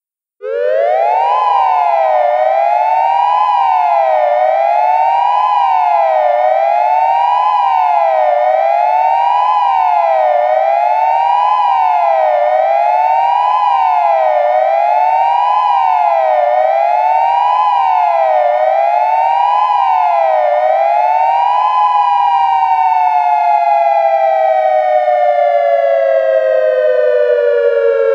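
Synthesized Federal Signal Modulator II outdoor warning siren on a UV controller in dual tone, sounding its fast wail: two tones a little apart rise and fall together about every two seconds. After about twenty seconds the cycling stops and both tones wind down in a long, slow fall.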